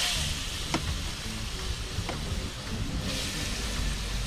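Curry-seasoned rabbit meat hitting hot oil and curry in a pot, sizzling hard on contact. The sizzle eases, flares up again about three seconds in, and a few light knocks sound as it is stirred.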